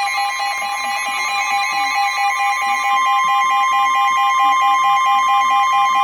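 Emergency Alert System alert tone signalling a tornado warning: a loud, steady electronic tone with a second, lower tone pulsing about four times a second.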